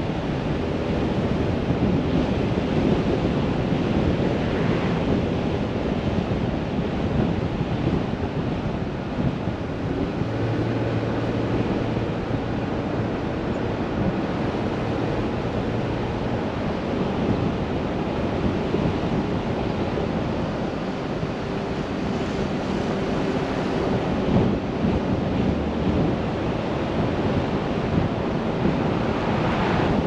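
Steady wind and tyre noise of a car driving along a paved road, rushing evenly throughout, with a faint engine hum rising in the low end for a few seconds about a third of the way in.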